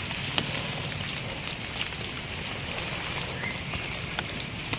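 Light rain pattering and dripping on wet forest leaves: a steady hiss with scattered sharp drop ticks.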